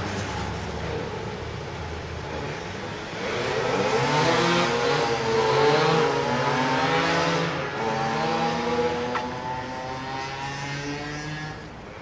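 Motor vehicle engines passing by, the engine note rising and falling in pitch. The sound is loudest in the middle and fades toward the end.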